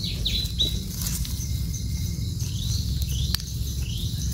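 Forest ambience: a steady low rumble with a few faint, short high bird chirps, and a single light click about three seconds in.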